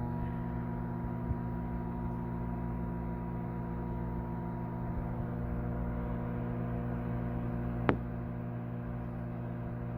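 Microwave oven running, a steady electrical hum, with one sharp click about eight seconds in.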